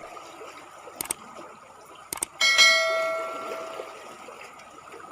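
A couple of light clicks, then a small metal object is struck and rings out with a bell-like tone that dies away over about a second and a half, over the steady trickle of running water.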